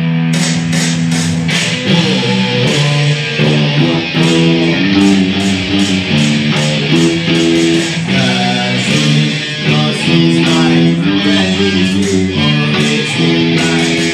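Electric guitar and bass guitar playing a rock riff through amplifiers, the chords changing every half second to a second.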